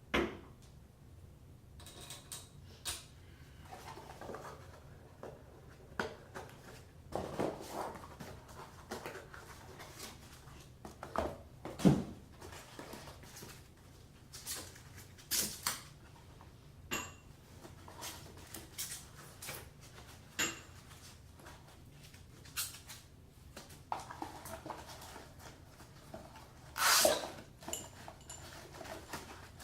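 Faucet parts and packaging being handled: scattered clicks, knocks and rustles of hard pieces picked up and set down, with a sharp knock about twelve seconds in and a longer clatter near the end.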